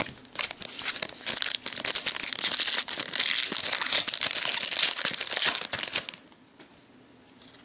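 Foil trading-card pack wrapper being torn open and crinkled, a dense crackling that stops about six seconds in.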